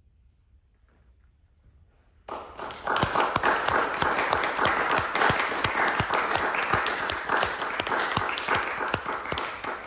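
An audience applauding, starting suddenly about two seconds in after near silence and easing off near the end.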